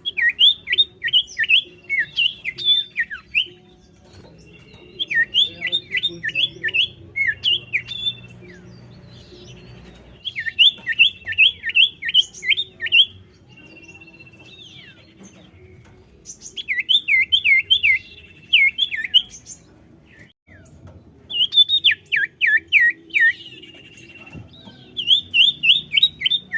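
Common iora (cipoh) singing: six loud phrases of about eight quick, sharply down-slurred notes, each phrase about three seconds long, with a thin held whistle between some phrases.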